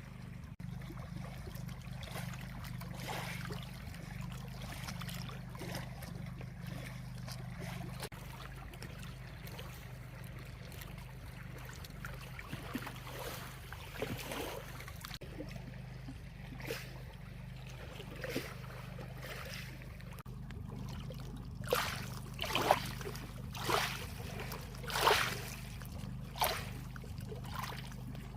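River water lapping and splashing at the shore over a steady low hum. About three quarters of the way through comes a run of sharper, louder splashes, several within a few seconds.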